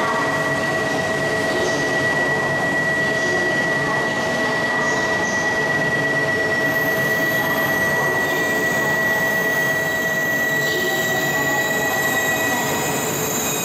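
Platform departure bell ringing steadily as one unbroken high tone, which stops shortly before the end. Under it is the steady noise of the standing 200 series Shinkansen train.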